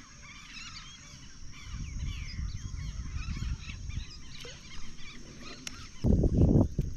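Many small birds chirping and calling at once, in short rising and falling notes. A low rumble joins about two seconds in and grows louder near the end.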